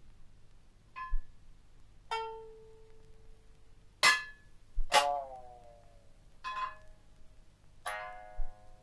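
Sparse plucked notes on a three-stringed lute (sangen) and a small frying pan, played as an experimental composition: about six widely spaced notes. The loudest are two sharp strikes about four and five seconds in, the second ringing on with its pitches sliding down.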